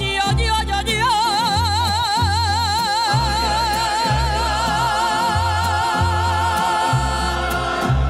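A woman singing a ranchera with a mariachi band, holding one long high note with wide vibrato from about a second in until it fades near the end. Underneath, the band keeps a steady plucked bass line.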